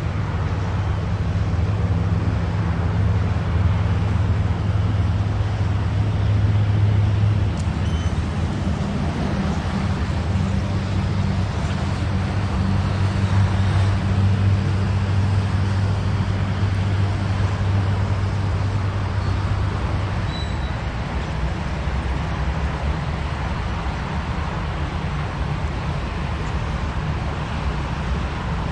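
Aircraft engines running at the airfield: a steady low rumble that swells twice and eases off in the later part.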